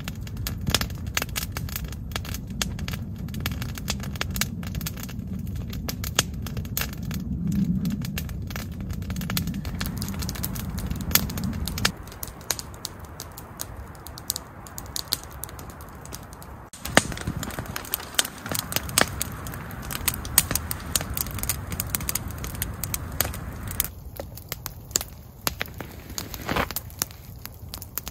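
Open wood campfire crackling, with many irregular sharp snaps and pops. A low steady rumble runs under it for the first twelve seconds or so.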